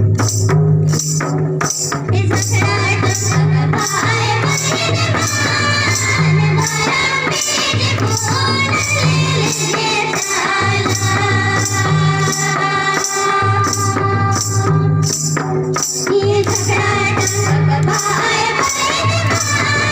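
Music with a steady beat: deep repeating bass notes, jingling tambourine-like percussion ticking evenly, and a melody with singing.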